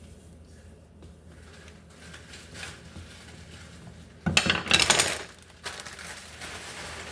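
Kitchenware clattering: a loud, brief run of clanks and rattles about four seconds in, lasting a second or so, with low room noise before it.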